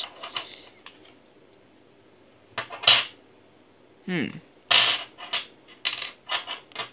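Metal and plastic parts of a Beyblade clicking and clinking as they are handled and pulled apart: a few sharp clinks about three seconds in, the loudest at about three seconds, then a run of lighter clicks toward the end. A short falling tone comes about four seconds in.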